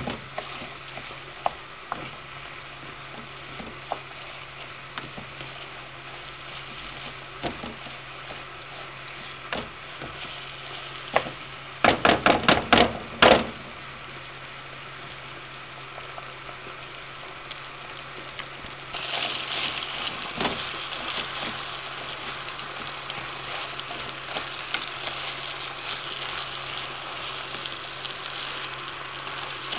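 Rice and vermicelli toasting in olive oil in a frying pan, sizzling steadily while a wooden spoon stirs and scrapes through it. There is a quick run of sharp knocks about twelve seconds in, and the sizzling grows louder a little past the middle.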